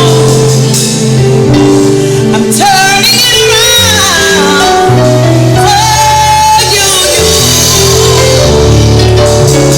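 Music: sustained instrumental chords under a solo voice singing a melody that bends and runs between notes, from about two and a half seconds in until about seven seconds.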